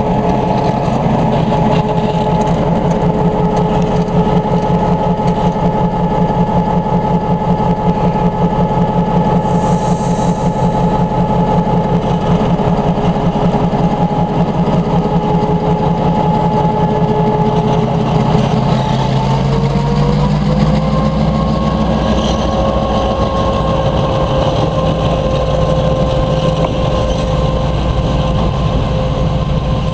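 EMD MP15DC diesel switcher locomotive running close by: the 12-cylinder EMD 645 engine's steady drone with a whine over it. About nineteen seconds in, the engine note rises and holds higher as the throttle is opened. A brief hiss of air comes about ten seconds in.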